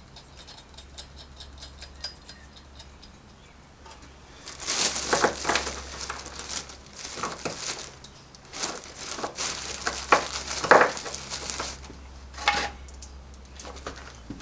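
Metal tools and parts clinking and clattering in irregular bursts, starting about four and a half seconds in and dying away near the end with one last clink, over a steady low hum.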